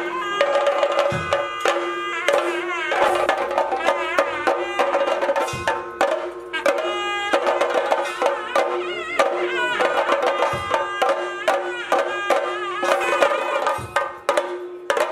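Theyyam drum ensemble of chenda drums and elathalam hand cymbals playing a fast, dense rhythm, with a wavering pitched melody over a steady held tone.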